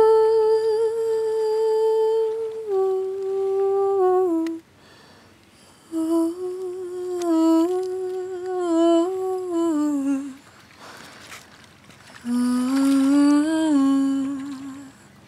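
A solo voice humming a slow, wordless melody in three phrases. The first is a long held note that steps down near its end. The second wanders gently up and down, and the last one rises and then settles.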